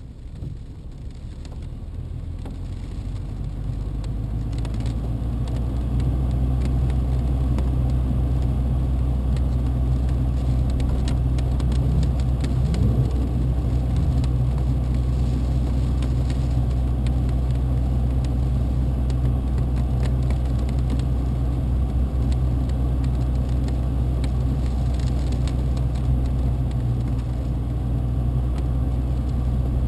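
BMW E90 on the move: engine and road noise rising over the first several seconds as the car gets going, then a steady low rumble at cruising.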